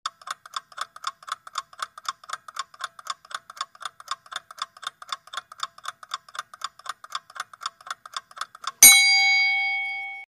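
Countdown-timer sound effect: a clock ticking rapidly and evenly, about four ticks a second. Near the end a single loud bell strike rings out with several tones and fades, marking that the time is up.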